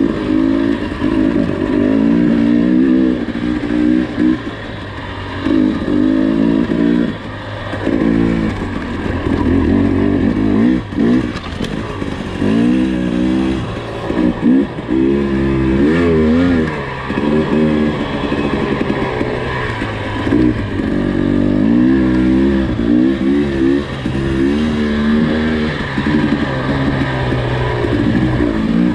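2021 Husqvarna TE300i two-stroke single-cylinder dirt bike engine running under the rider, revving up and dropping back over and over as the throttle is worked, with a few short lulls off the throttle.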